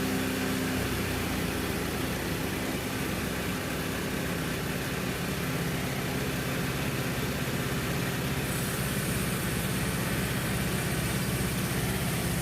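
Frontier OS27 bandsaw mill's engine running steadily. A higher hiss joins about eight seconds in.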